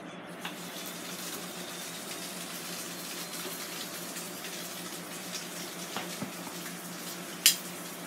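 A click as the Ninja Foodi XL Grill's lid is opened, then a steady hiss from the open, hot cooker over the low hum of its fan. A sharp click of metal tongs comes near the end.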